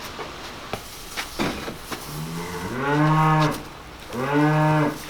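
Cattle mooing: two long, drawn-out moos, the second shortly after the first, after a few faint knocks.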